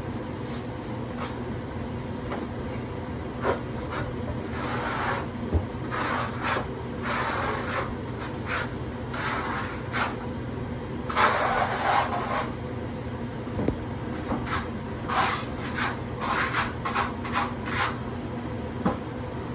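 Notched trowel scraping and spreading rapid-setting thinset mortar across a floor in irregular strokes, some short and some about a second long, over a steady low hum.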